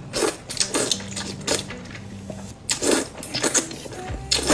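Close-miked eating sounds of spicy squid and noodles: about five short, wet chewing and slurping noises, spaced irregularly, over quiet background music.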